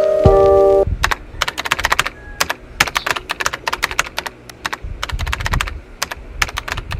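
Computer keyboard typing sound effect: rapid, irregular key clicks, following a held music chord that cuts off about a second in.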